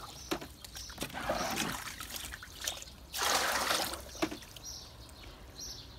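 Rainwater poured from a plastic bucket into another bucket in two pours, about a second in and again about three seconds in, with small knocks of the buckets between.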